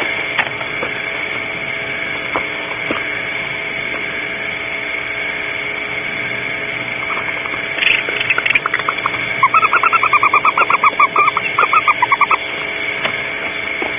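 An owl calling: a rapid, even trill of about thirty short notes lasting roughly three seconds, over a steady electronic hum from the recording equipment.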